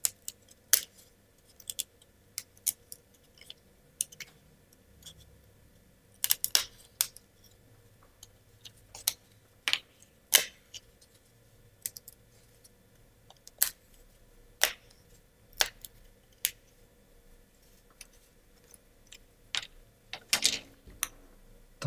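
Laser-cut plywood kit parts being pushed out of their sheet and handled. Scattered sharp wooden clicks and snaps, with a short scrape near the end.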